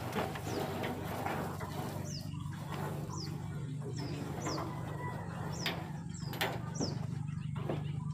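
Small birds chirping: short falling chirps every second or so, over a steady low hum, with a few sharp knocks in the second half.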